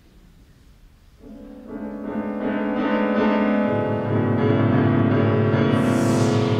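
Children's choir with piano begins a piece. After about a second of hush, long held chords swell in, and a lower part joins about halfway. Near the end, breathy whooshing sweeps come in over the chords.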